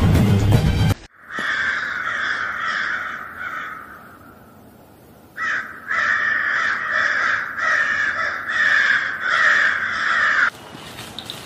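Background music cuts off about a second in, then crows caw over and over in a harsh chorus, dying down in the middle and returning as a rapid run of caws that stops shortly before the end.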